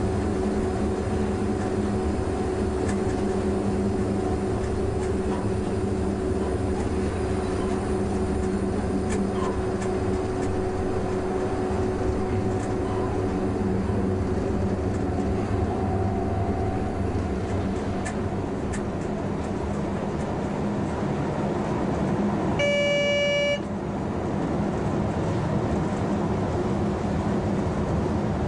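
A DB class 140 (E 40) electric locomotive running, heard from inside its cab: a steady hum over rail running noise. About 23 seconds in comes one short horn toot, under a second long.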